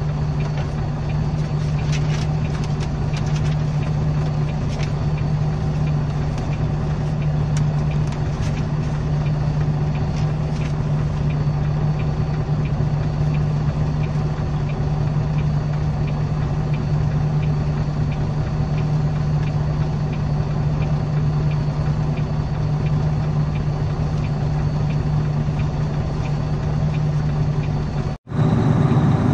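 Truck's engine idling, a steady low hum heard from inside the cab, with faint rustles and clicks of paper and pen now and then in the first several seconds. The sound drops out for an instant near the end.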